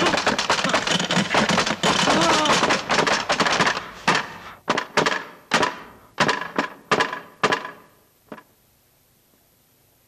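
A loud jumble of clattering with a voice in it, then a run of about eight sharp knocks or crashes, each ringing off briefly, the last one fainter, stopping a little past eight seconds in.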